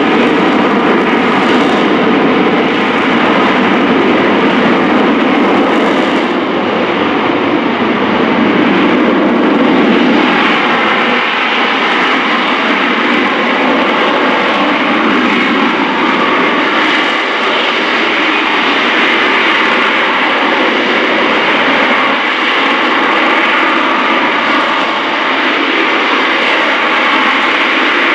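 AV-8B Harrier II's Rolls-Royce Pegasus turbofan running at high power in flight: loud, steady jet noise with a faint whine in it.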